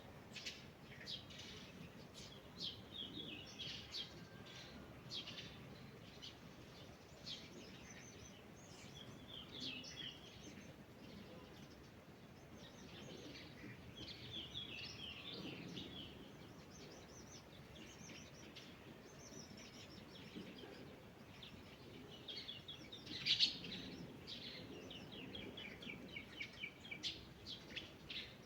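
Several songbirds singing, with overlapping short high chirps and rapid trills, and one louder call about three-quarters of the way through.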